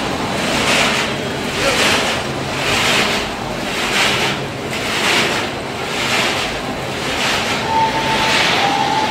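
Fried extruded snack sticks tumbling in a rotating seasoning drum: a dry rushing rustle that swells and fades about once a second.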